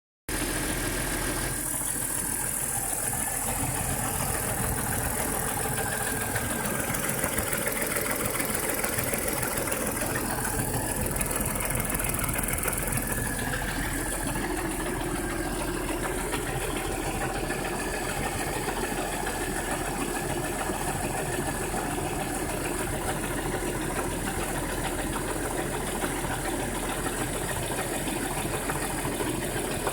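Audi A6's 2.8-litre V6 engine (code AQD) running steadily with a knocking noise from the engine.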